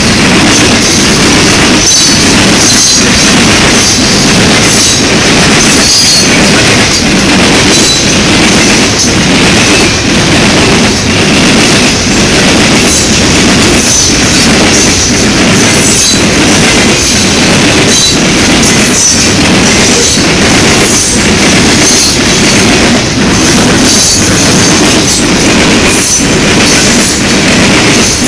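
Loaded CSX coke train's freight cars rolling past at close range. The wheels clack rhythmically over the track in a steady, loud run, with brief high wheel squeals, most of them in the first few seconds.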